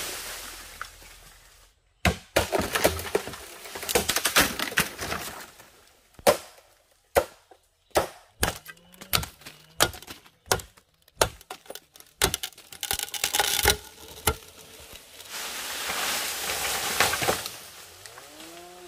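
A rapid, irregular series of sharp knocks and cracks, as of work on wood, with short rushes of noise between them. A low, arching bird call sounds briefly around the middle.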